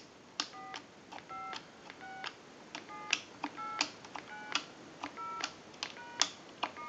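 Rotary-style dial of a wooden desk telephone being dialed, digit after digit: a fairly faint run of short clicks, each carrying a brief tone at a few pitches, about two to three a second.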